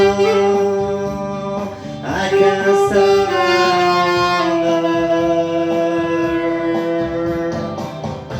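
Music: a saxophone plays phrases ending in long held notes over guitar accompaniment.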